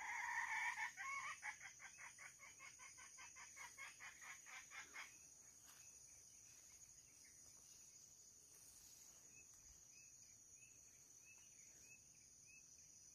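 Red junglefowl giving a rising squawk and then a rapid run of cackling alarm notes that fade out over about five seconds, as the bird is flushed and flies off.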